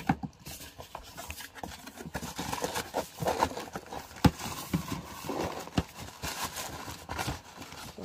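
Cardboard box being opened by hand, with irregular knocks, scrapes and taps as the flap is opened and the box is handled, and rustling as the wrapping inside is pulled out.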